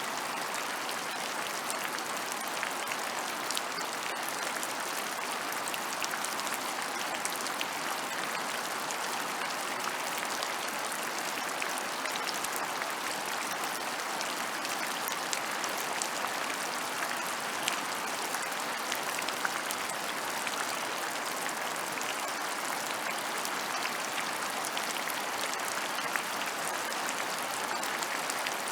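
Steady rain falling on open rural ground, a dense even patter with many fine drop ticks.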